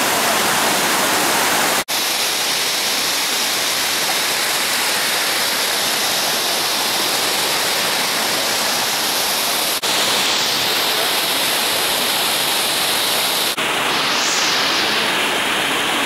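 Waterfall cascades rushing steadily as water pours over rock tiers, broken by three very short dropouts.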